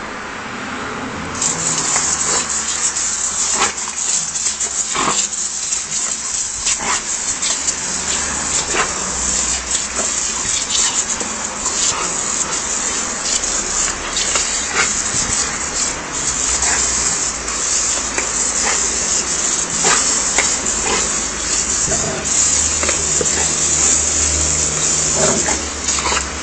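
Garden hose spraying water with a steady hiss that starts a second or two in, while dogs snap and bite at the water jet, making scattered sharp splashes and snaps, with a dog vocalising now and then.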